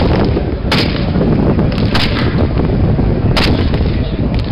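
Rifles firing single blank shots: three sharp cracks about a second and a half apart, over a steady low background rumble.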